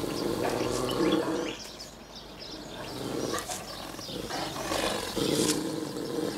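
Great Dane growling deeply at a person, in repeated long menacing bouts.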